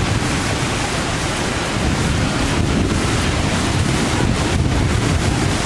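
Heavy rain and gusting wind in a thunderstorm, with wind buffeting the microphone: a loud, steady rushing noise.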